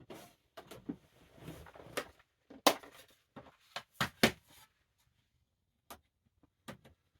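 Hand tools being handled: a series of irregular clicks and knocks with light rustling, the loudest a little under three seconds in and two more close together around four seconds.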